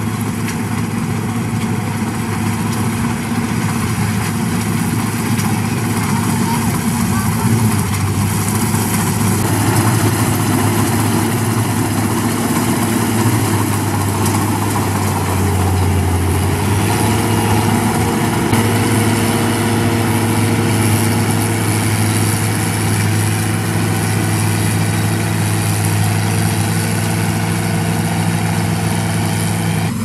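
CLAAS Crop Tiger 30 tracked rice combine harvester running steadily under load as it cuts and threshes standing rice. Its engine and threshing machinery make a loud, even drone, and the engine note shifts briefly around halfway.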